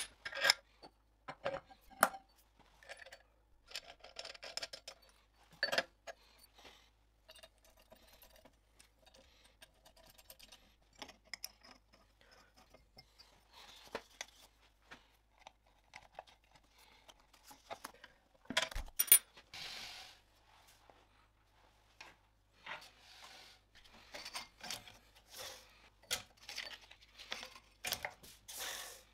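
Hands handling the metal parts of a small belt sander: scattered light clicks, clacks and soft scrapes, with the loudest clatter about two-thirds of the way through.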